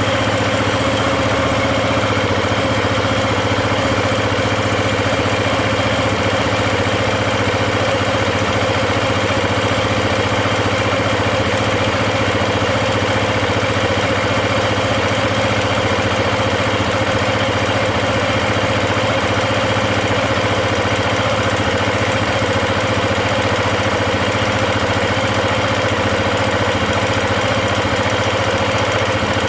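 KTM 690 Enduro's single-cylinder engine idling steadily when warm, with a valve chatter from the valvetrain that is hard to pinpoint, after a top-end rebuild with new rockers and shafts.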